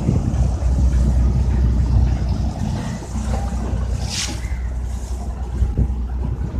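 Steady low rumble of a moving houseboat, with wind buffeting the microphone. A brief hiss comes about four seconds in.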